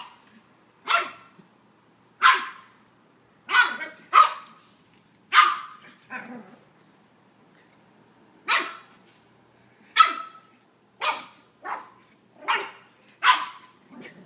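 Ten-week-old black pug puppy barking at its own reflection in a mirror: about a dozen short barks, with a pause of about two seconds midway.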